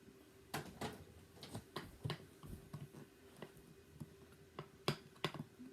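Scattered light clicks and taps from the plastic parts of a bagless upright vacuum being handled with its motor off, about a dozen irregular knocks over a few seconds over a faint steady hum.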